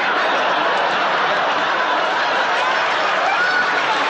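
Studio audience laughter, loud and sustained, an even wash of many voices laughing at once.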